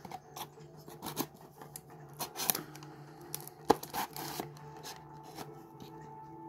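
A cardboard trading-card hanger box being handled and opened: wrapping and cardboard scratching and tearing in a string of short clicks and scrapes, the sharpest about two and a half and nearly four seconds in, over a faint steady hum.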